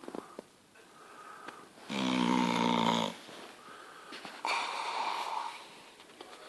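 Bulldog snoring in its sleep: one loud, buzzing snore about two seconds in that lasts about a second, followed after a pause by a softer, breathier snore.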